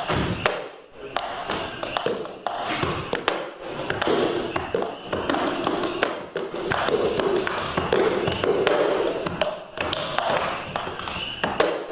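Indistinct voices with many sharp taps and knocks scattered throughout.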